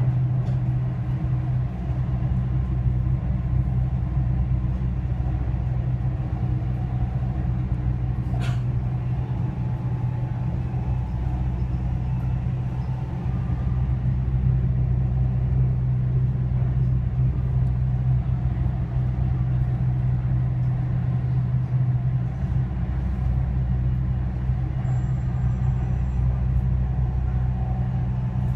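Driverless Dubai Metro train running at speed on elevated track, heard from inside the carriage: a steady low rumble and hum of motors and wheels on rail. A single short click comes about eight seconds in.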